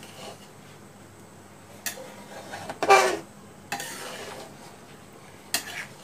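Metal spatula knocking and scraping against an aluminium pan while stirring amla in thick sugar syrup: a few separate clinks, the loudest about three seconds in, over a low steady hum.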